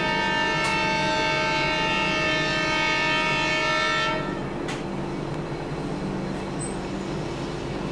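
Locomotive horn sounding one long, steady chord blast that cuts off about four seconds in, over the steady rumble of a train running through a station.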